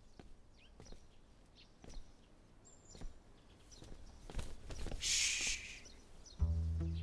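Quiet courtyard ambience with scattered bird chirps and light taps, and a brief hiss about five seconds in. Background music with low, stepping notes begins near the end.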